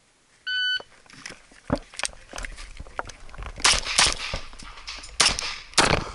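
A shot timer's start beep, then an STI 2011 Edge .40 S&W pistol firing rapid shots, mostly in quick pairs.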